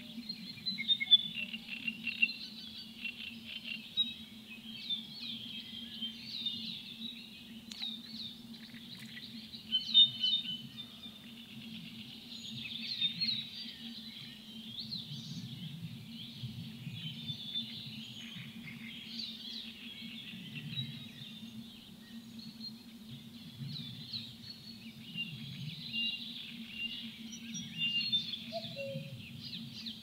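Chorus of many small birds chirping and singing at once, dense and continuous throughout, over a steady low hum. Near the end a couple of short, lower calls stand out.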